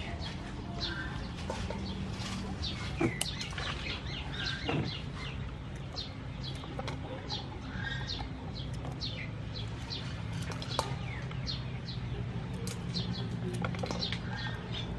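Small birds chirping on and off throughout, over a steady low hum. A few sharp snips of kitchen scissors cutting young green peppercorns from their stems stand out above them.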